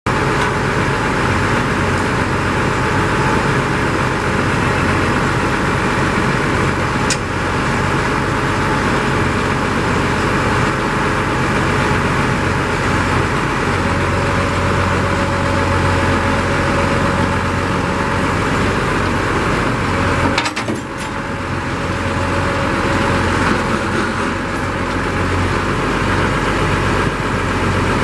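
International Harvester 350 Utility tractor's gasoline engine idling steadily.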